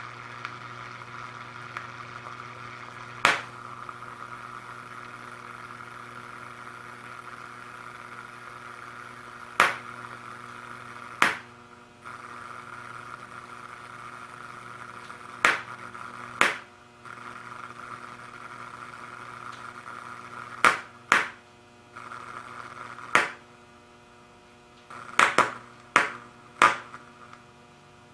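A water-filled CRT electron gun under AC mains voltage hums steadily as current flows through the water, broken by about a dozen sharp pops and bangs. The hum cuts out briefly after several of the pops and stays low near the end.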